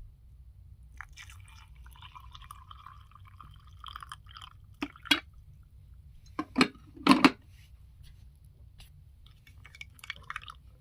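Coffee pouring into a cup for about three seconds, then several sharp knocks and clinks of the cup and dishes being handled.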